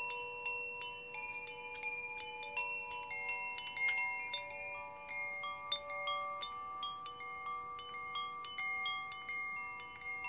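Hand-held wind chime swung gently, its rods struck at random so that clear ringing notes overlap and hang on for several seconds.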